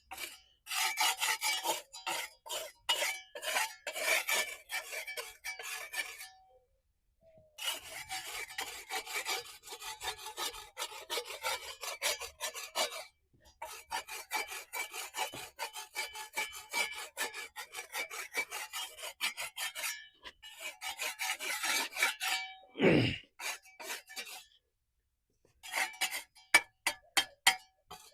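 Quick, repeated scraping strokes of a hand tool on the hard pool surface, removing stuck-on material, in bouts of several seconds with short pauses. About two-thirds of the way through there is a brief tone that slides downward.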